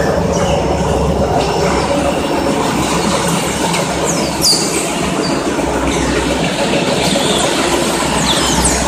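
Soya chunk production-line machinery, the extruder among it, running with a loud, steady mechanical drone. Brief high squeals come through about halfway and again near the end.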